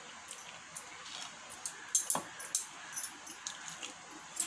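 A wooden spoon stirring wet cooked amaranth greens and dal in an unglazed clay pot, with scattered light knocks and scrapes of the spoon against the pot's wall. Near the end a cup of water is tipped into the pot.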